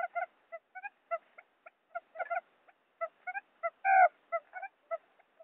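Recorded female quail lure call, played to attract wild quail. It is a rapid, irregular run of short pitched notes, with one louder, longer note about four seconds in.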